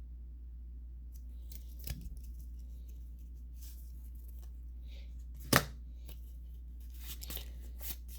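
Pokémon trading cards being handled and flicked through: scattered soft clicks and rustles, with one sharp click about five and a half seconds in, over a steady low hum.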